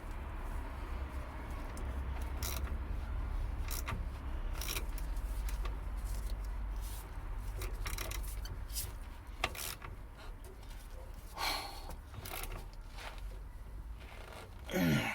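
Hand tools on the car's rear suspension: scattered metallic clicks, clinks and scrapes of a socket and ratchet as the lower shock absorber bolts are done up, with a couple of louder scrapes near the end.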